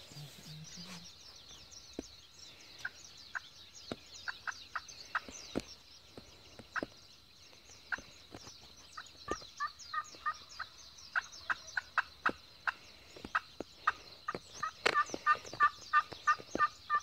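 Wild turkey hen calling from a hunter's turkey calls: scattered single sharp clucks that come more and more often, building into a fast run of loud yelps and cutts near the end. A steady high-pitched chirping chorus runs underneath.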